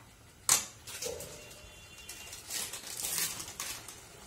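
Metal spatula stirring and scraping thick masala paste in a metal kadhai, with one sharp clink of the spatula against the pan about half a second in and scraping again a couple of seconds later.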